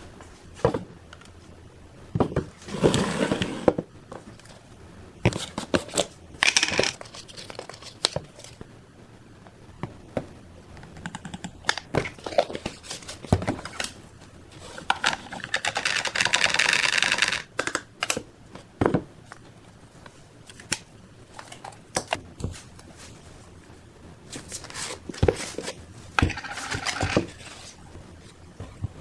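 Plastic mugs and supplement tubs being handled and set down on a wooden tabletop: scattered knocks and taps, with three longer stretches of rustling, the longest about two seconds past the middle.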